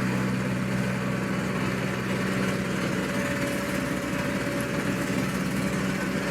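Road roller engine running steadily with an even hum.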